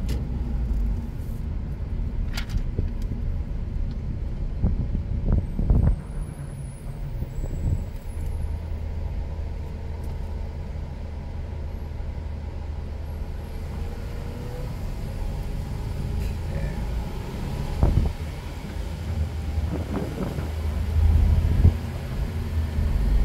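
A car being driven through city streets: steady low road and engine rumble heard from inside the car, with a few brief thumps from the road.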